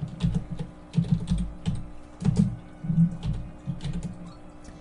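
Typing on a computer keyboard: a run of quick, irregular key clicks as a short phrase is typed.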